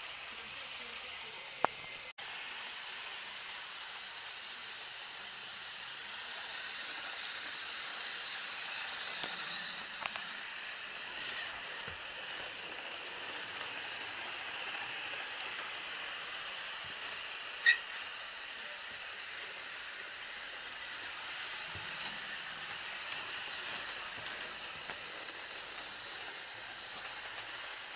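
Hornby Eurostar model train running around its track with a steady hissing whir, a little louder through the middle. A few sharp clicks, the loudest about two-thirds of the way through.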